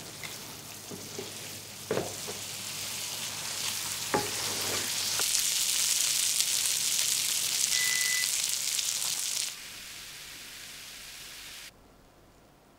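Chicken pieces sizzling in a thick spiced sauce in a frying pan, the sauce reducing as it is stirred with a wooden spatula, with a few knocks of the spatula against the pan in the first few seconds. The sizzle grows louder from about two seconds in, drops back about nine and a half seconds in, and stops shortly before the end.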